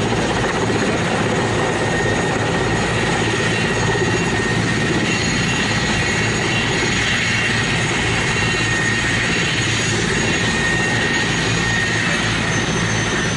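Mi-17-type military helicopters running close by, steady turbine and rotor noise with a high whine held throughout, as they hover and land.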